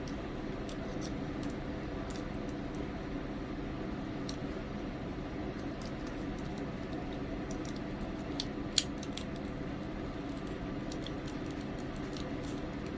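Small plastic clicks and ticks of a Transformers action figure's joints and panels being moved and pegged together during its transformation, with one sharper snap about nine seconds in, over a steady background hum.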